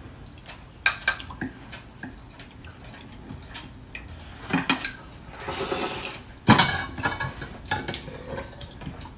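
Chopsticks and spoons clinking and knocking against ceramic bowls and plates during a meal: scattered light clicks, with the loudest knock about six and a half seconds in.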